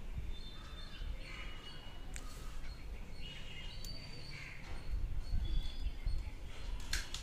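Birds chirping repeatedly in the background over a steady low rumble of room and street noise. A few sharp clicks come as the helmet's visor is handled, about two, four and seven seconds in.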